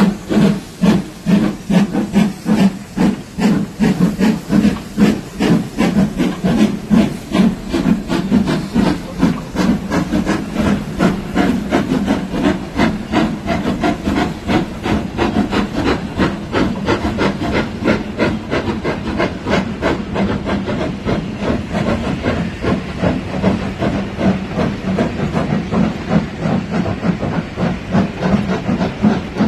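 Two steam locomotives, an Ivatt 2MT tank engine and a Black Five, working hard together with a fast, regular chuffing from their exhausts. The beats are sharp and loud at first, then blend into a more even rhythmic rumble as the engines pull away and the carriages roll past.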